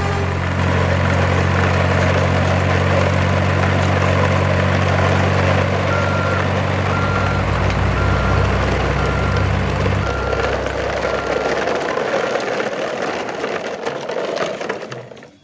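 Truck engine sound running steadily with a noisy rumble. From about six seconds in comes a string of short beeps about once a second. The low engine hum drops out about ten seconds in and the sound fades away near the end.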